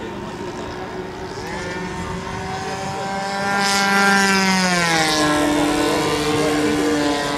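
Radio-controlled model aircraft flying past with its engine running: the note grows louder and rises slightly in pitch as it approaches, is loudest about four seconds in, then drops in pitch as it passes.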